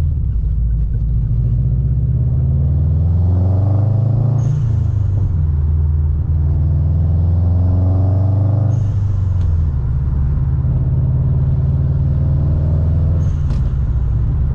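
Turbocharged car engine accelerating twice as it climbs through the revs, each pull cut off by a short hissing turbo flutter as the throttle lifts for the shift, then cruising steadily with one more brief flutter near the end.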